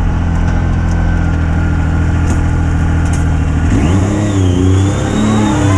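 Yamaha YXZ1000R side-by-side's three-cylinder engine running steadily at speed on a dirt trail. About four seconds in, its pitch dips and then wavers up and down.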